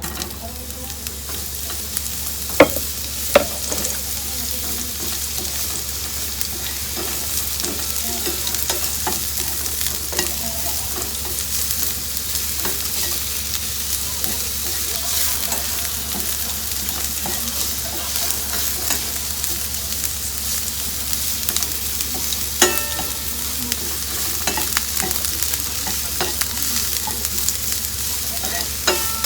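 Bacon sizzling and frying in a pan, a steady hiss, with a few sharp knocks of a utensil against the pan: two close together early on and one more near the end.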